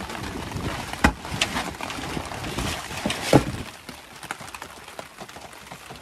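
Knocks and clatter of items being moved around in a wooden camp-kitchen box, with a sharp knock about a second in and another just past three seconds, over a steady patter of rain.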